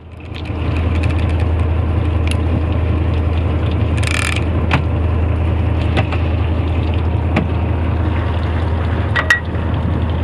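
Sportfishing boat's engine running with a steady low drone, with a few scattered sharp clicks and knocks and a brief hiss about four seconds in.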